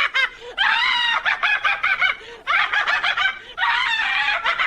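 Parrot making high-pitched cackling calls: a few short calls, then longer runs broken by brief gaps.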